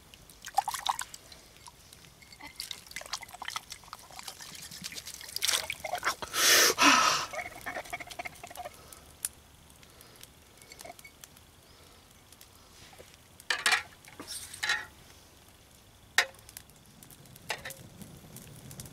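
Water poured into a drinking glass and swirled to rinse it, with drips and short knocks, the biggest splash about six and a half seconds in.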